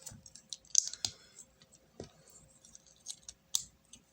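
Small plastic LEGO bricks being handled, giving a few scattered sharp clicks and light rattles.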